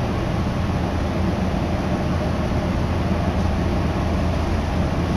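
Steady rumble of a Meitetsu Kowa Line electric commuter train heard from inside the carriage as it moves slowly off from a station.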